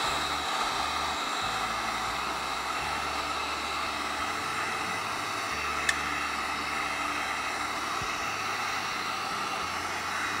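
Electric heat gun running steadily, its fan blowing hot air over vinyl wrap to shrink it down and set it. A single light click about six seconds in.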